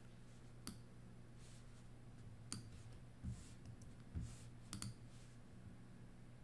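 Faint, scattered clicks of a computer mouse, about six over a few seconds, over a low steady hum.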